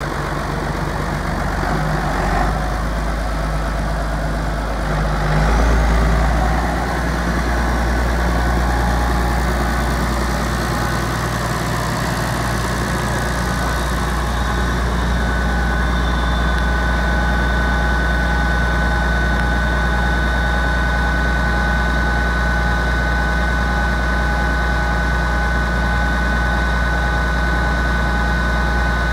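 Massey Ferguson 6290 tractor's six-cylinder diesel engine idling steadily. It swells briefly louder about five seconds in, and a thin steady high whine joins it from about halfway.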